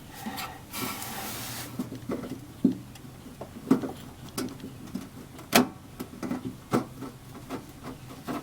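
Irregular light clicks and knocks of hand work on small metal parts, with a short hiss about a second in.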